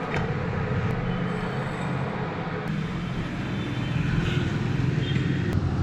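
Steady low hum and rumble.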